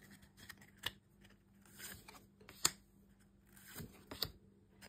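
Pokémon trading cards being flipped through in the hand: soft sliding rubs of card on card and a few sharp snaps as each card is moved, the sharpest about halfway through.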